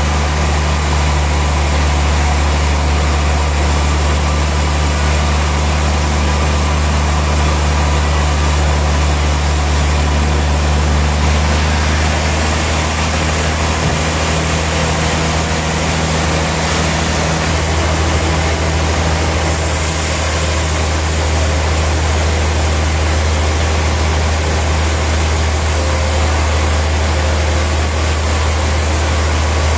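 Sawmill machinery running steadily: a loud, constant low hum under an even wash of mechanical noise.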